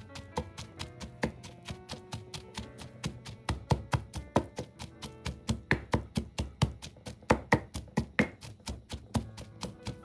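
Wooden pestle pounding shredded cooked chicken in a clay mortar: a fast, even run of dull strikes, about four or five a second, heaviest in the middle, over background music.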